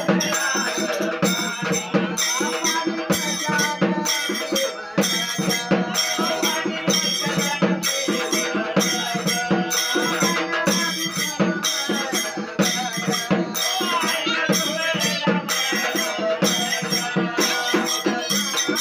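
Devotional folk song with voices singing over a small frame drum beaten with a stick and brass hand cymbals, keeping a steady beat of about two strokes a second.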